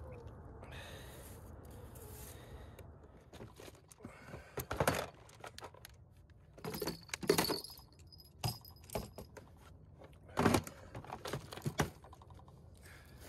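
Hard plastic tip-up case being handled: a string of clicks, knocks and rattles as the lid and latches are worked and the tip-ups inside are moved, loudest about five, seven and ten seconds in.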